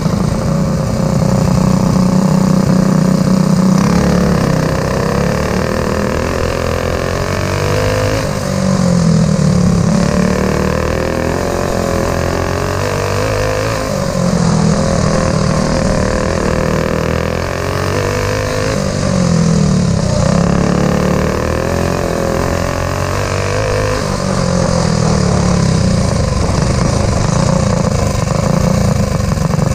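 Racing kart's engine heard onboard from the driver's seat at race pace, its pitch falling and rising again about every five seconds as it laps a small dirt oval.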